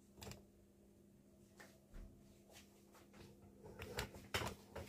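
Faint handling noises as a plate is picked up and lifted: a few light knocks and clicks, the loudest cluster near the end, over a low steady hum.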